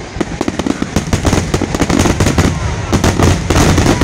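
Aerial fireworks going off in a rapid, dense barrage of bangs and crackling, many reports a second, getting louder and busier from about a second in.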